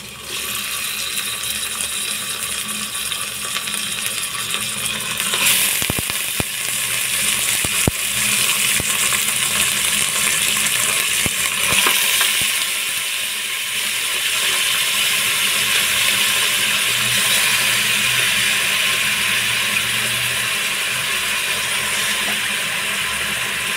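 Raw mutton pieces dropped into hot oil and fried onions in an aluminium pressure cooker, sizzling loudly and steadily from the moment the first pieces go in. A few sharp clicks are heard over the sizzle.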